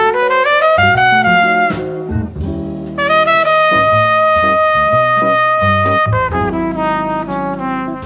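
Jazz quintet recording with a lead brass horn, trumpet or flugelhorn, over a bass, drums and guitar rhythm section. The horn plays a rising phrase, breaks off, then holds one long note for about three seconds before stepping back down.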